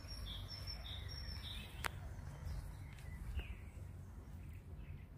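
Outdoor park ambience: a small bird sings a few short, high notes in the first second and a half, over a steady low rumble, with a single sharp click about two seconds in.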